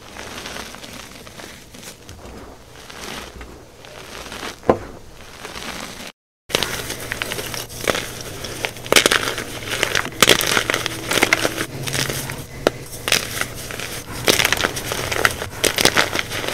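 Hands crushing and squeezing soft, powdery gym chalk, a dusty crunching and crackling. After a short break about six seconds in, it becomes louder and crunchier, with many sharp crumbly clicks as blocks of chalk are squeezed apart.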